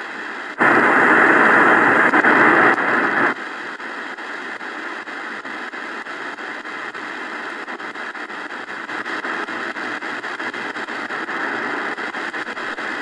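Shortwave static from the XHDATA D-901's speaker as the dial is tuned across the band between stations. A loud burst of noise lasts about three seconds near the start, then a steadier hiss follows with many faint ticks from the tuning steps.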